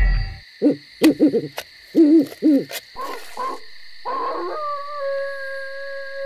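Owl hooting sound effect: a run of short hoots that rise and fall in pitch, then two higher calls. About four and a half seconds in, a steady held tone begins.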